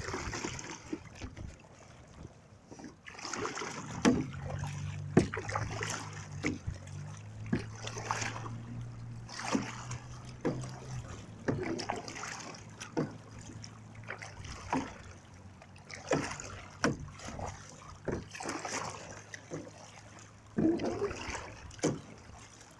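Kayak paddle strokes: the double-bladed paddle dipping into and pulling through the water, a short splash every second or so, with water running off the blades. A low steady hum sits under the strokes for several seconds in the first half.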